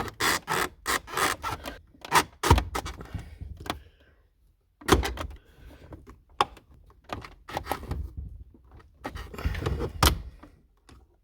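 A Fox-body Mustang dash pad being pushed and worked into place against the dashboard: irregular knocks and clicks with plastic rubbing and scraping, a brief pause about four seconds in, then more knocks.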